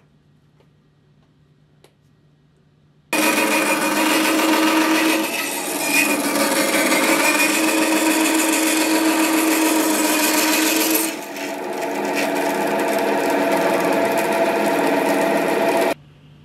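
Metabo BAS 260 Swift band saw running and cutting a thin strip of wood, starting abruptly about three seconds in and cutting off abruptly near the end. It is loud and steady, with brief drops in level about five and eleven seconds in.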